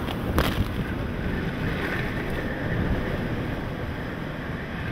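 Strong hurricane wind blowing steadily through trees, with gusts buffeting the microphone. A single sharp tap sounds about half a second in.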